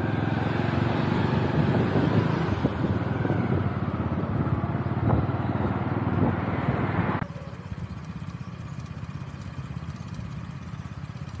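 Motorcycle engine running with wind rushing over the microphone while riding pillion. About seven seconds in the sound cuts abruptly to a quieter, steady engine hum.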